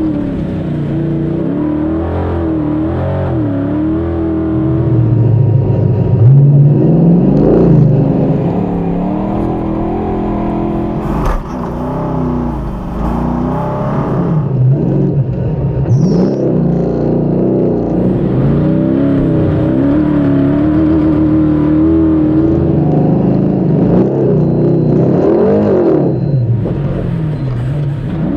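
Beast347 rally buggy's V8 engine heard onboard at speed, its note climbing and dropping again and again as the driver accelerates, lifts and shifts. It is loudest about six to eight seconds in.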